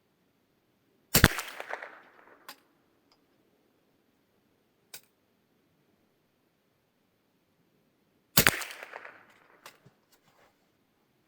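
Two shots from a Kongsberg M22 rolling-block rifle firing .22LR subsonic rounds, about seven seconds apart, each a sharp crack with a short ringing tail. A few small clicks follow each shot.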